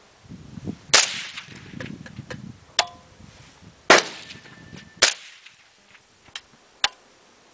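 Three shots from a suppressed LWRC REPR 7.62 rifle with an SWR suppressor, each a sharp crack with a short ringing tail, about a second in, near the middle and a second later. A few fainter clicks fall between and after them.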